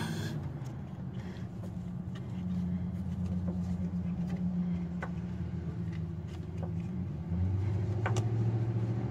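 A motor vehicle engine running with a steady low hum, its pitch shifting about seven seconds in. A few faint metallic clicks come from a wrench working a bolt under the car.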